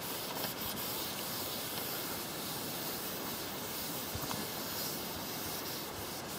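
Steady hiss of a cloth being wiped over a shelf top, with a few faint scrapes.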